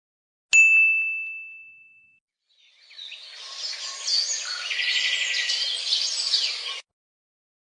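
A single bright bell ding about half a second in, ringing out and fading over about a second and a half. Then, from about three seconds in, some four seconds of birds chirping and singing, which stop abruptly.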